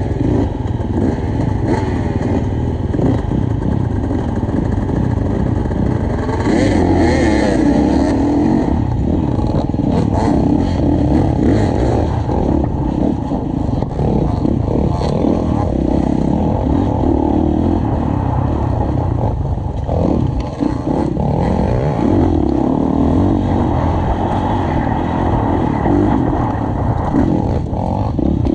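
Off-road dirt bike engine heard up close from the rider's helmet, revving up and easing off again and again as it is ridden along a tight, rough trail, with clatter from the bike over the bumps.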